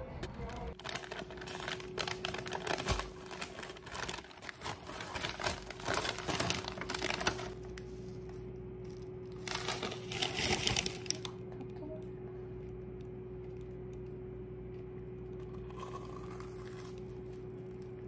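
Food packaging crinkling as it is handled, in clusters over the first several seconds and again briefly about ten seconds in. After that only a steady room hum remains.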